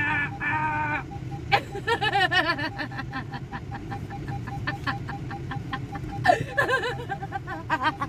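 A woman giggling and laughing in quick repeated bursts inside a car, over the low steady hum of the idling engine, with a faint beep repeating evenly throughout.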